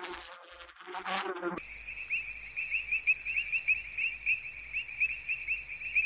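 Sound effect of a bee buzzing, wavering in pitch, for about a second and a half. It cuts to a chorus of night insects, crickets, chirping in a steady high pulse of about five chirps a second.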